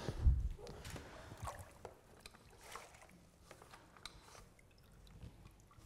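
A low thump just after the start, then faint footsteps and scattered clicks with a little water noise as a wet long-handled blackboard mop is picked up from the floor, ready to wipe the board.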